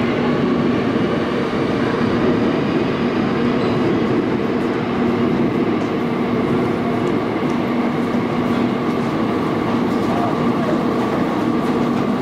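Seoul Subway Line 8 train running steadily through a tunnel, heard from inside the car: an even rumble of wheels on rail with a low steady hum.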